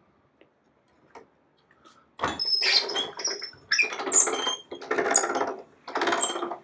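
Hand-cranked slab roller squeaking as it is turned to press a slab of clay. After about two seconds of quiet, it gives a run of loud squealing scrapes, about one a second.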